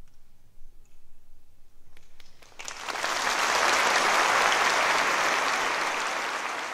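A hush of about two seconds with a few scattered claps, then audience applause starts about two and a half seconds in, swells to full within a second and holds, easing off slightly near the end.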